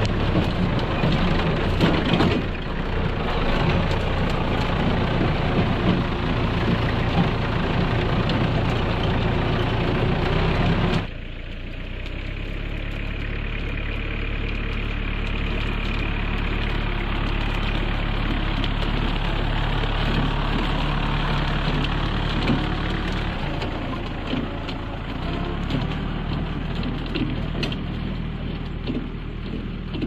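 Small farm tractor's engine running as it cuts through tall grass with a rear-mounted rotary cutter. Loud and close at first; about 11 seconds in it changes abruptly to a quieter, more distant, steady engine hum.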